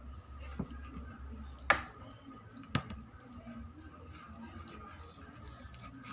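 Three sharp clicks about a second apart, a barbecue stick knocking against a bowl while stirring sticky slime, over a low steady hum.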